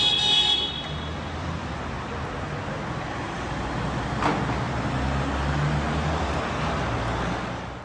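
Street traffic and a car engine running at low speed while a car is manoeuvred into a tight parking space. A car horn sounds briefly at the start, and there is a single sharp knock about four seconds in.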